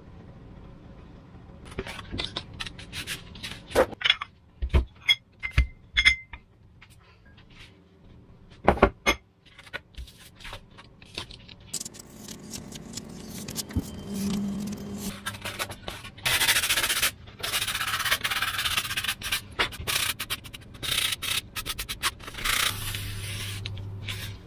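Sheets of Depron foam being handled on a desk: a scatter of sharp clicks and knocks in the first half, then a long stretch of scratchy rubbing and scraping of foam against foam and the desk.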